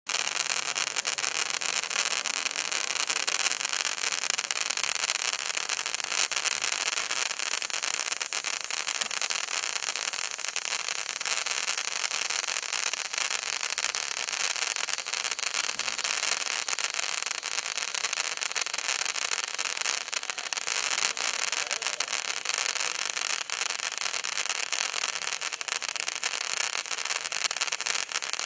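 Bright Star Ice Fountains (BS5601) stick fountain firework burning: a steady hiss of spraying sparks laced with a dense fine crackle, starting suddenly.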